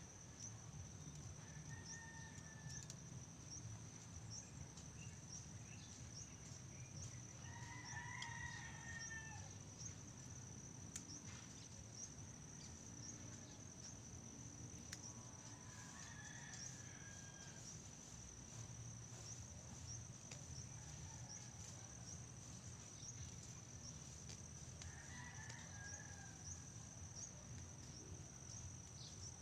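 Faint outdoor ambience: a steady high-pitched insect buzz, with a rooster crowing a few times, loudest about eight seconds in.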